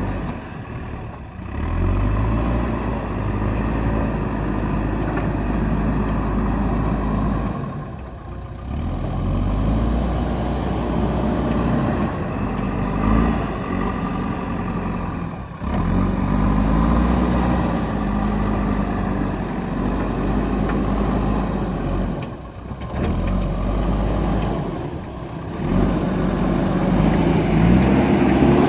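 JCB backhoe loader's diesel engine running and revving up and down under load, with brief sharp drops in sound about every seven seconds.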